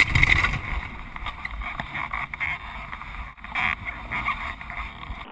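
Honda motocross bike's engine running while being ridden, loudness rising and falling, mixed with wind rushing over the onboard camera's microphone.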